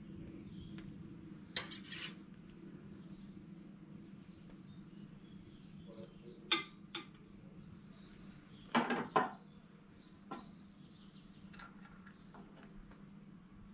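A handful of light metallic clinks and clicks from muzzleloader loading gear being handled at a shooting bench, spread out, with the loudest cluster about nine seconds in, over a steady low hum.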